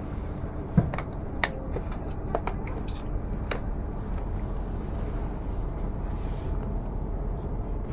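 Steady low rumble of a passenger train running along the track, heard from inside the carriage. A handful of sharp clicks and knocks come in the first few seconds, the loudest about a second in, one with a brief metallic ring.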